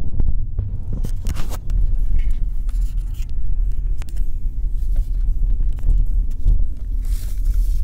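Low, steady cabin rumble of a Chevrolet SS's 6.2-litre V8 and tyres while it rolls at low speed. Knocks and rubbing from the phone being handled come over it, most around a second in and again near the end.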